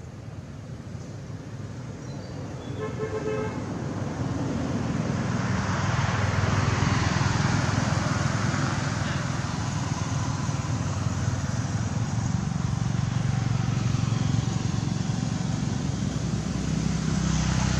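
Road traffic: a short horn toot about three seconds in, then a motor vehicle's engine and road noise getting louder from about four seconds and staying loud.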